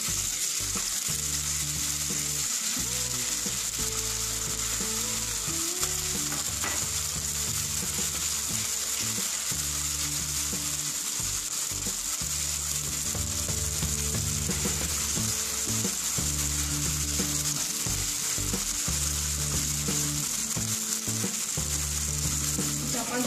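Soaked soya chunks shallow-frying in a little hot oil in a non-stick kadai: a steady, bright sizzle with oil spattering.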